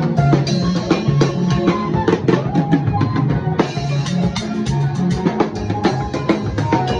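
Music with a drum kit playing a busy beat, with many snare and bass drum hits each second over a bass line and other pitched instruments.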